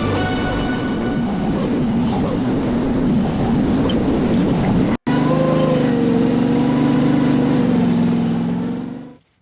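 Derette DRT480 mini skid steer running, a loud steady drone from the machine. About five seconds in there is an abrupt break, then a steadier engine hum with a wavering whine over it, which fades out just before the end.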